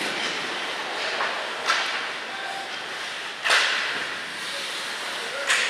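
Ice hockey play in a rink: steady scraping of skates on the ice, with three sharp hits of sticks and puck, the loudest about three and a half seconds in, echoing in the arena.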